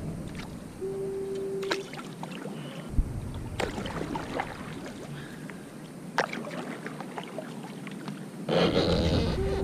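Kayak paddle strokes: the blades dip and splash in the water, with scattered knocks of the paddle and gear against the plastic hull, and a louder rushing splash near the end. A short steady beep sounds about a second in.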